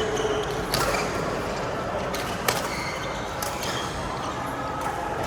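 Badminton rally: several sharp racket strikes on the shuttlecock, a second or so apart, the loudest about halfway, over steady background noise.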